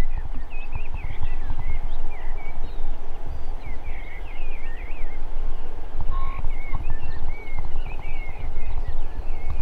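Wind buffeting the microphone in a constant low rumble, with small birds singing over it in quick rising and falling chirps.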